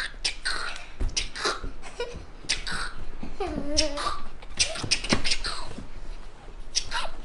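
A young boy making playful mouth noises: a run of sharp, breathy hisses and clicks, with one short pitched vocal sound about three and a half seconds in, and some laughter.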